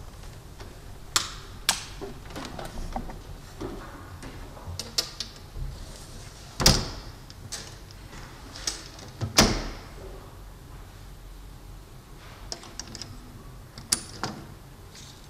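Scattered knocks and clicks of people moving about in a church after a service, with two louder thumps about seven and nine and a half seconds in.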